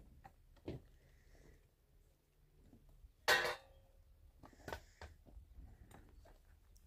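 Dry branches and sticks being handled: a few light scattered knocks and one louder, sharp clatter a little over three seconds in.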